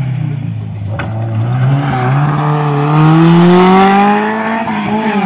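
Classic Alpine A110 rally car's rear-mounted four-cylinder engine accelerating hard out of a corner, its pitch rising steadily as it pulls away.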